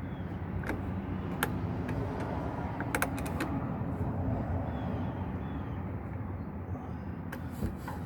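A few light clicks and knocks of parts and tools being handled, over a steady low hum.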